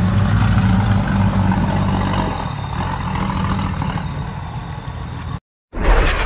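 Toyota Land Cruiser HDJ80's 4.2-litre straight-six turbo diesel running under load as the truck pulls away on a muddy track, fading as it goes. About five seconds in the sound cuts off abruptly, and after a short silence a loud whoosh starts music.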